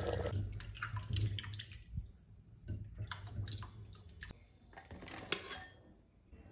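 Splashing and dripping water, broken up by scattered clicks and knocks.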